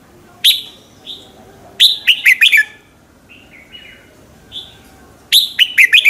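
Red-whiskered bulbul singing in loud, quick phrases of short whistled notes, each dropping in pitch. One note comes about half a second in, a fast run of four around two seconds, a few softer notes in the middle, and another fast run near the end.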